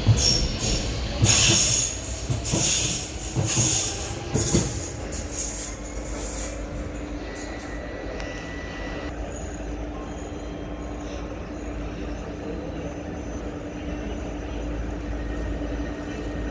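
Train on the rails with wheels squealing and clattering for the first five seconds or so, then settling into a steady hum.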